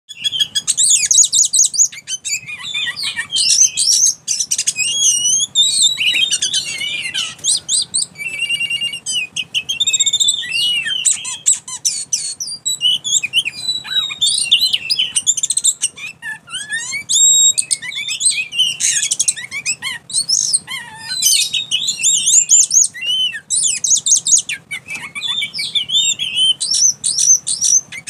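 Oriental magpie-robin (kacer) singing nonstop in a fast, jumbled stream of varied whistles, chirps and buzzy trills, the erratic frenzied song that Indonesian bird keepers call "konslet" (short-circuited).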